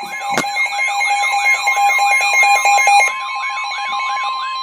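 Emergency alert tones opening a NOAA Weather Radio flood warning: a steady alarm tone under a fast warbling siren-like alert, about two to three sweeps a second. A second steady tone drops out about three seconds in, and there is a single click about half a second in.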